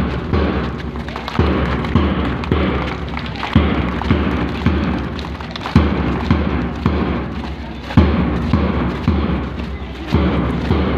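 A big drum beating a slow, steady march, about one heavy beat a second, over a continuous low musical drone.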